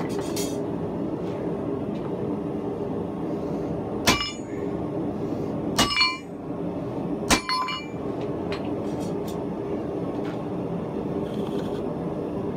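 Steady roar of a blacksmith's forge running, with three separate ringing metallic clangs of steel striking steel about a second and a half apart near the middle.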